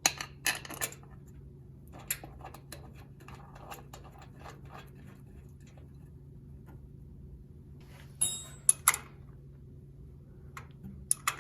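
Scattered metal clicks and clinks of a VW Beetle's bolt-on valve cover and its bolt hardware being fitted and tightened by hand. A few clinks come in a cluster at the start, lighter ticks follow, and sharper clinks with a brief high ring come about eight seconds in and again near the end.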